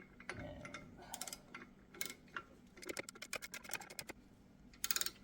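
Brake caliper piston tool being worked to push the piston back into the caliper: a series of small metallic clicks, scattered at first, then a quick run of clicks about three seconds in.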